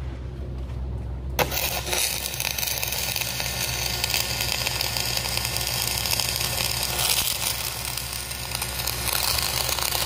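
Electric arc welding on steel plate: about a second and a half in, the arc strikes and a continuous crackling sizzle carries on. A steady low hum sits underneath.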